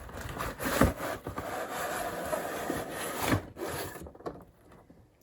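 Cardboard scraping and rubbing against cardboard, with a couple of light knocks, as a boxed item is slid out of a large shipping box; the handling stops after about three and a half seconds.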